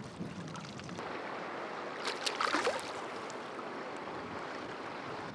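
River water running steadily, with a brief burst of splashing about two seconds in as a hooked trout thrashes at the surface beside the landing net.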